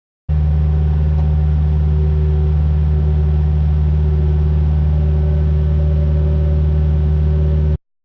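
Kubota KX057 compact excavator's diesel engine running at a steady, high working speed with a deep, even hum. It starts and cuts off abruptly.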